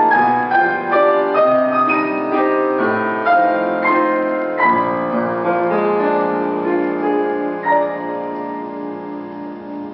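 Piano music: a flowing line of quick notes that slows into longer held notes and grows softer near the end.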